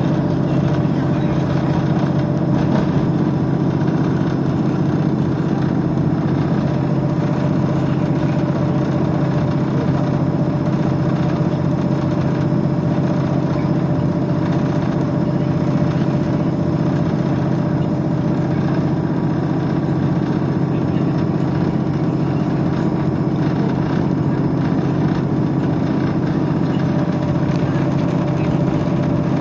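Diesel engine of a passenger train running steadily at a constant pitch, heard from inside the carriage.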